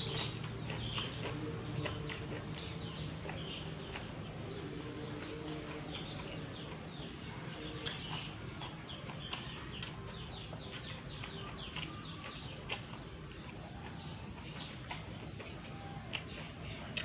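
Eating sounds from raw papaya stem and pepes being chewed, with scattered sharp crunches, over a steady background of many birds chirping in quick, short calls.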